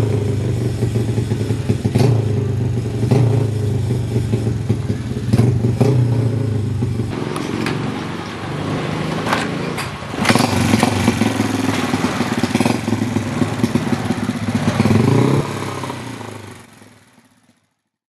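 Modified underbone motorcycle with an open 'bomba' exhaust running with a steady low drone, revved up a few times so its pitch rises. The sound fades out near the end.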